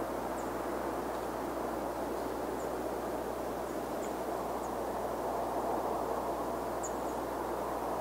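A steady, even rumbling background noise, with faint, very short high-pitched chirps of small birds about six times.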